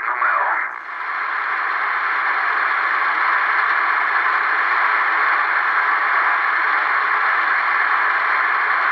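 Cherokee CBS-1000 CB base station receiving on 27.285 MHz AM: a voice through the radio cuts off under a second in, and after a brief dip the speaker gives steady static hiss.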